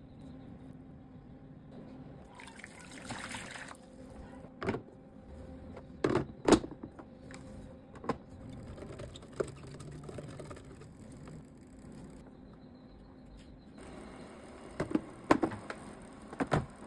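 Handling an Oxone electric food steamer's clear plastic trays and lid: a short liquid pour or splash about three seconds in, then scattered sharp plastic clacks and knocks as the pieces are set down and fitted.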